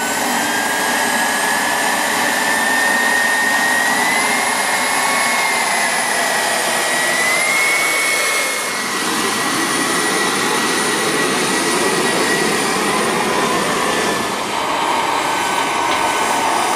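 Miniature gas turbine of a model GT3 turbine locomotive running: a high-pitched whine over a steady rushing exhaust. The pitch rises a little twice in the first half, then holds.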